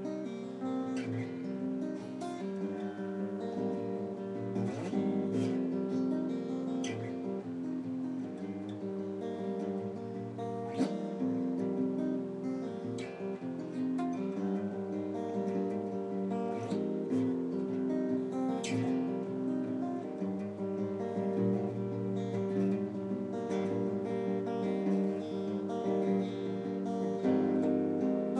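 Solo acoustic guitar played unaccompanied, a mix of picked notes and strummed chords ringing on, with a louder strum at the very end.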